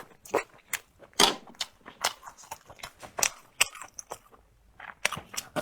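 Close-miked chewing and biting of food: irregular crunches and wet clicks from the mouth, with a short lull about four seconds in.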